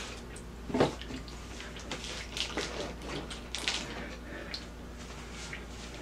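Hot cooking liquid boiling in a pan around an upturned steel bowl, with irregular pops and sputters; the loudest pop comes about a second in.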